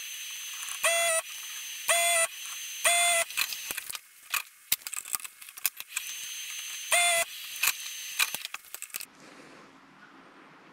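Vacuum desoldering gun sucking solder from the pins of a Schottky diode on a circuit board: a steady hiss with short whistles, three about a second apart and a fourth about seven seconds in, and a scatter of small clicks. The hiss stops about nine seconds in.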